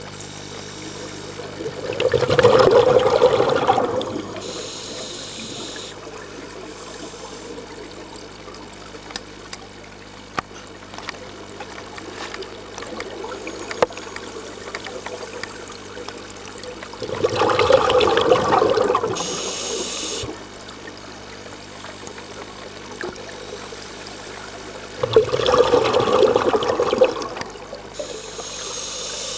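Scuba diver's exhaled breath bubbling out of the regulator underwater, three long gurgling surges of bubbles, each followed by a shorter, higher hiss.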